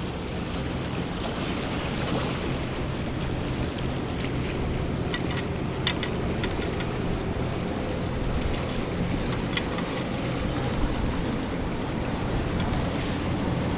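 Steady background of sea water washing on rocks with a low, steady engine hum, and a few faint clicks about halfway through.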